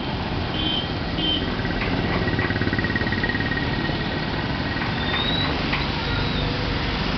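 Busy street traffic: motorcycles, autorickshaws and other vehicles running, a steady low engine rumble, with a few short high beeps in the first second or so.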